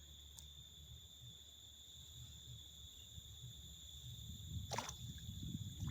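Quiet outdoor ambience: a steady, high insect chirring, like crickets, over a low rumble, with a faint tick about half a second in and a brief rustle near the end.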